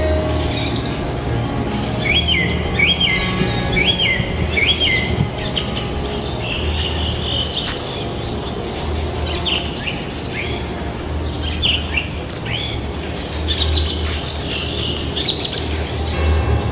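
Songbirds singing and calling in a spring chorus. About two seconds in comes a run of four short swooping whistled notes, followed by scattered chirps and trills.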